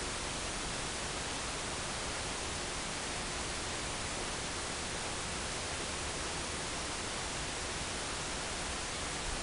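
Steady, even hiss with nothing else standing out: recording noise, room tone.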